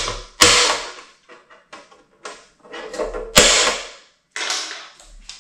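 Center punch striking thin sheet metal to make starting dimples for a drill bit: two sharp clicks about three seconds apart, with lighter taps and handling noises between them.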